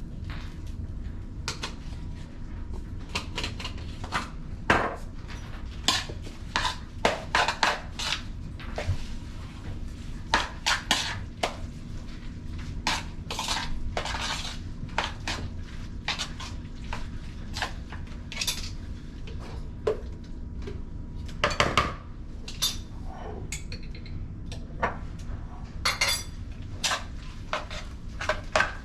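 A spoon clinking and scraping against a bowl many times at an uneven pace as chicken salad is stirred together with mayonnaise, relish and seasoning.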